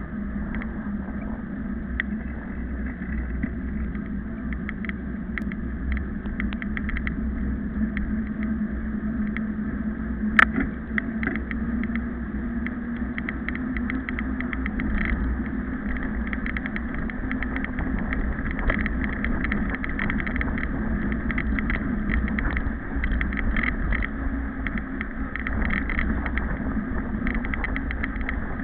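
Mountain bike riding over asphalt, picked up by a camera mounted on the bike: a steady low road rumble with constant light rattling clicks, and one sharper knock about ten seconds in.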